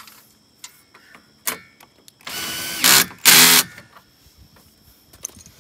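Cordless drill driving a 1/4-inch hex bolt into a nylon lock nut to fasten a tilting bracket to a solar panel: two short runs of the motor, the second louder, after a few light clicks of handling.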